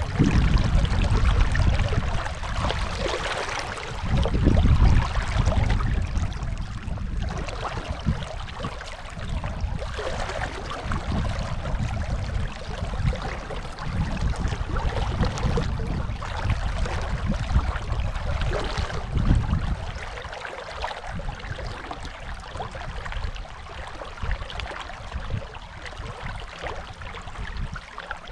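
Rushing water of the Dunajec river: a steady hiss with irregular low rumbling, louder in the first few seconds and easing in the last third.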